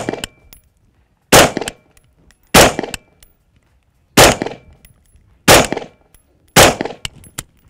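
AR-15 rifle firing five deliberate single shots, about one every second and a quarter, each with a short echo. Light metallic ticks come between the shots.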